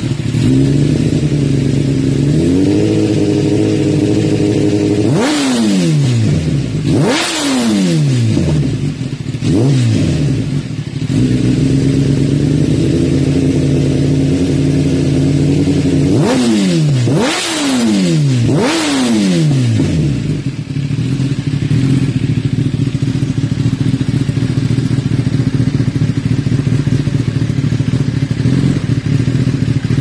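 Kawasaki ZX-10R inline-four idling through an Akrapovič titanium slip-on exhaust, with the throttle blipped sharply three times, then three more times about ten seconds later. Each blip revs up briefly and falls back, and the engine settles to a steady idle near the end.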